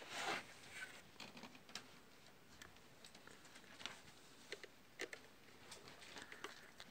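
Faint small clicks and ticks of a screwdriver working the screws of a plastic screw terminal block on the appliance's power cable, with a brief rustle of handling at the start.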